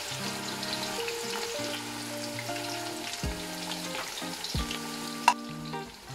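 Sliced onions sizzling steadily as they fry in hot oil and ghee, stirred with a steel ladle, with one sharp knock about five seconds in.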